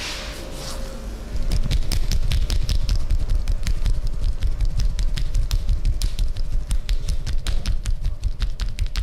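Massage hands rapidly tapping and slapping on a person's body, a dense irregular patter of thumps and sharp claps that starts about a second and a half in.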